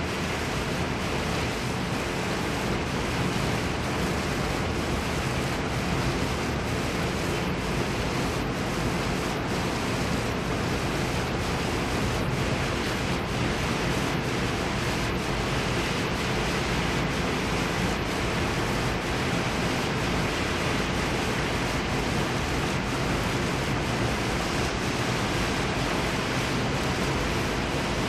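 Steady city rain: an even hiss of falling rain with a low rumble underneath and scattered drops ticking through it.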